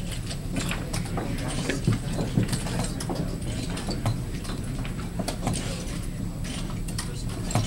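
Irregular clicking and clacking of plastic chess pieces being set down and chess clock buttons being pressed, from several blitz games at once, over a constant low hum in the hall.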